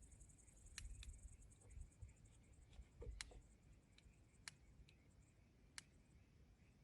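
Wood fire crackling faintly, with sharp irregular pops every second or so. Insects trill softly in the background, fading out about a second in and returning near the end.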